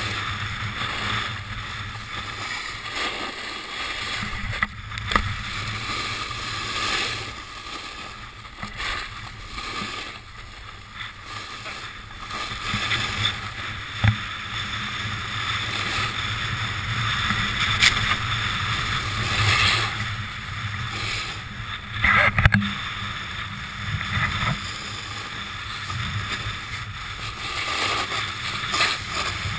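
Wind rushing over a GoPro action camera's microphone while riding downhill at speed, with the scrape of edges carving packed snow swelling and fading through the turns. A few sharp knocks stand out now and then.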